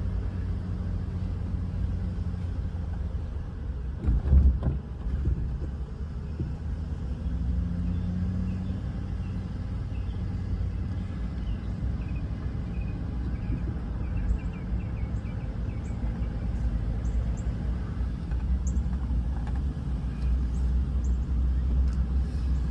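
Car driving slowly, a steady low rumble of engine and tyres heard from inside the vehicle, with a louder thump about four seconds in as it jolts over something.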